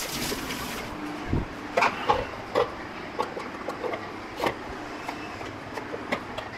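Tap water running into a small cup at the kitchen sink, cut off about a second in. Then come a few sharp knocks of utensils being handled, and light repeated ticks of a knife cutting tomatoes on a wooden chopping board.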